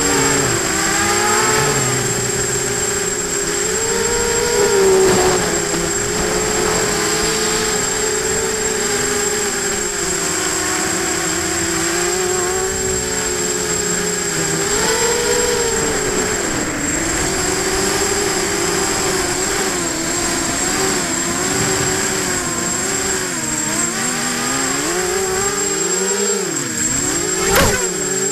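Brushless motors and propellers of an FPV hexacopter whining, heard on board, the pitch wavering up and down with the throttle. Near the end the pitch drops and there is a single sharp knock.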